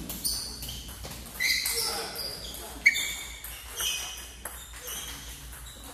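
Table tennis balls clicking against bats and tables from rallies around the hall, an irregular patter of sharp knocks with one loud click about three seconds in.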